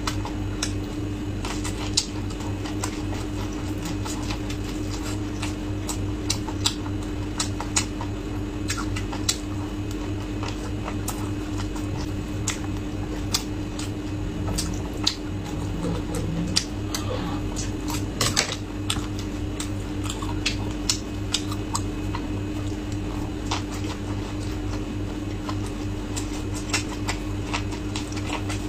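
Close-miked chewing and biting of a soft flatbread wrap filled with shredded potato, with many small irregular clicks and crackles from the mouth, and chopsticks gathering food about halfway through. A steady low hum runs underneath.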